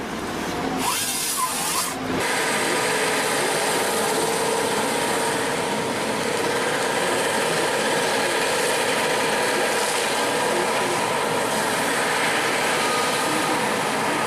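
Power saw running and cutting through wood. A brief, brighter rush about a second in is followed by a steady, dense cutting noise.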